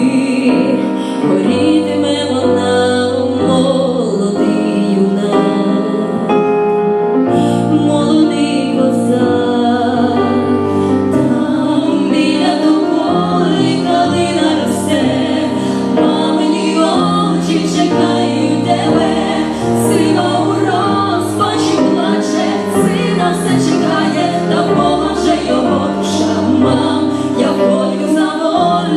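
Two women singing a Ukrainian song in duet over an instrumental backing track with keyboard and a light beat.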